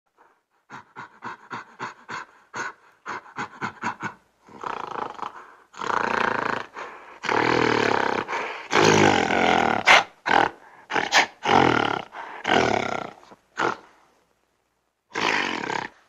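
Gorilla vocalizing: a quick run of short calls, about four a second, then several long, loud calls of a second or so each, then shorter calls with pauses between them.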